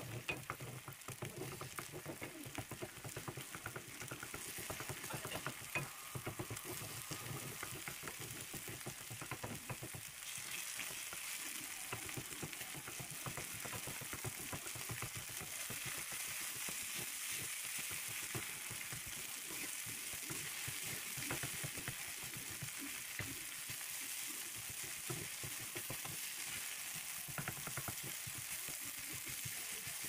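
Food frying in hot oil in a pan, a crackling sizzle. For the first ten seconds or so there are scattered clicks and knocks as the food is handled, then the sizzle settles into a steadier, brighter hiss.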